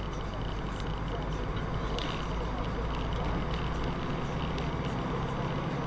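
Steady road and engine noise of a moving car, heard from inside the cabin, with a few faint ticks.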